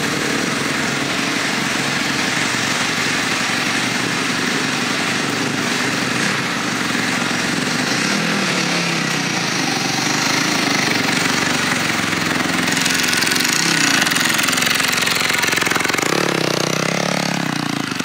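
Dirt bike engines running, a steady loud mechanical drone, with one engine rising in pitch near the end.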